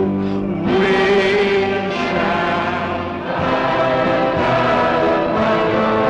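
Background music: a choir singing a song with instrumental accompaniment, holding long notes.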